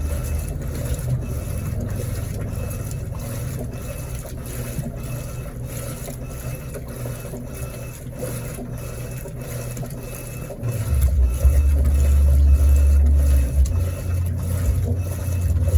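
Electrolux LTE12 top-loading washing machine running a wash cycle: a steady low motor hum with water moving in the drum, growing clearly louder about eleven seconds in.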